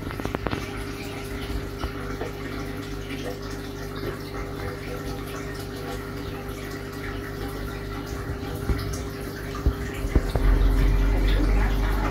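Fish tank's water circulation: a steady pump hum with water trickling and splashing. A louder low rumble starts about ten seconds in.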